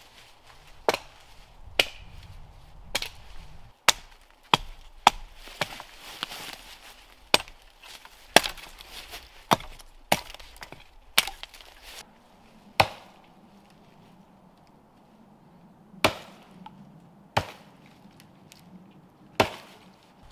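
Hatchet chopping into a dead fallen tree trunk: sharp, separate chops roughly once a second, then a pause of about three seconds followed by a few slower chops.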